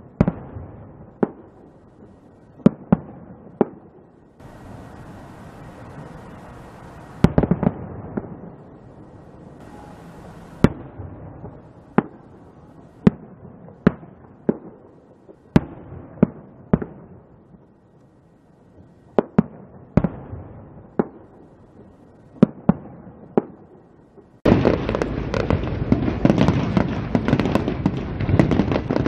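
Fireworks bursting, one sharp bang every second or so, each with a short echoing tail. Near the end the sound jumps abruptly to a loud, dense, continuous din.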